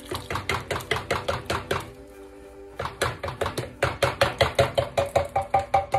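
Metal spoon rapidly knocking against an upturned tin can to shake canned pineapple chunks out into the pot, about five or six knocks a second. The knocks pause briefly around two seconds in, and near the end a light metallic ringing comes with them.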